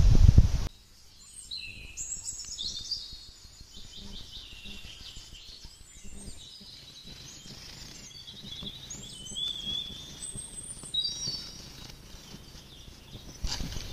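Birds singing and chirping: many short, high whistled notes with rising and falling glides, over quiet outdoor background. It is preceded by a brief loud low rumble that cuts off suddenly.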